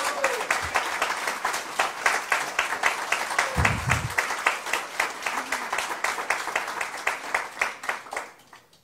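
Audience applauding: dense clapping from many hands that dies away near the end.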